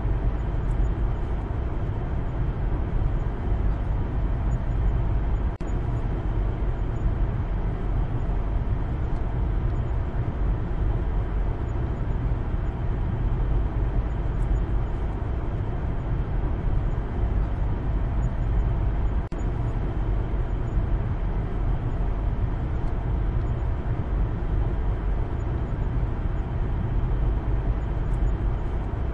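Steady low rumble of road and engine noise inside the cabin of a moving Maruti Suzuki Baleno. The loudness dips briefly twice.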